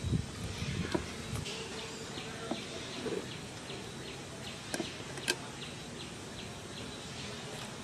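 Outdoor ambience with a short high chirp repeating steadily about three times a second, and a couple of sharp clicks around the middle.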